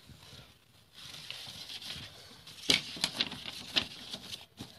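Paper and a folder being handled and shuffled: a steady rustling from about a second in, with a few sharp clicks and taps partway through.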